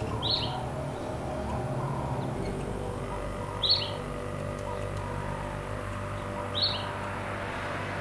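A bird chirping three times, one short high chirp about every three seconds, over a steady low background hum.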